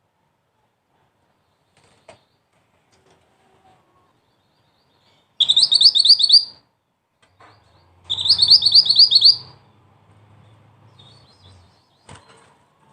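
Mantenan flowerpecker calling: two bursts of quick, high-pitched repeated notes, each about a second long and a second or two apart.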